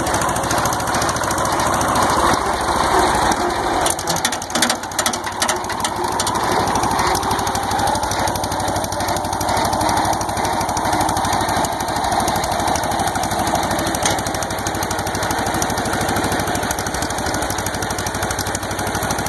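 John Deere 320 tractor's two-cylinder engine running steadily with a rapid pulsing beat, turning a John Deere 403 rotary mower through the PTO shaft. There is a short burst of clatter about four to five seconds in.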